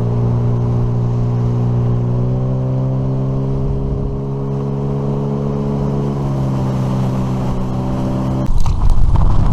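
A 9.8 hp outboard motor pushing an inflatable boat at a steady speed, its pitch sagging slightly midway. It cuts off sharply about eight and a half seconds in, giving way to wind buffeting the microphone.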